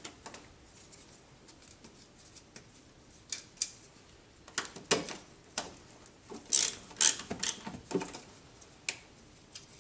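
Scattered light clicks and knocks of hand tools and parts being handled while removing a car's coolant reservoir, coming irregularly and more often in the second half.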